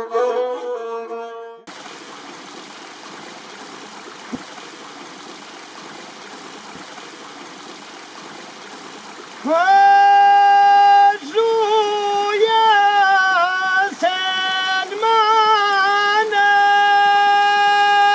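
Music with singing cuts off, leaving the steady rush of a stream. About halfway through, a high voice starts singing long held notes with wavering ornaments between them, loud over the water.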